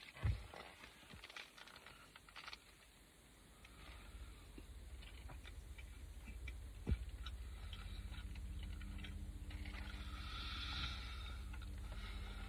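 Faint chewing of a mouthful of chili cheeseburger with crunchy corn chips in it, small crunching clicks scattered through the first few seconds. From about four seconds in, a low steady hum rises beneath it and holds.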